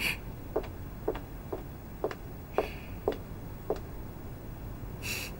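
Footsteps of a woman walking across a hard floor: sharp, evenly spaced clicks about two a second. There is a short hissing rustle in between and another just before the end.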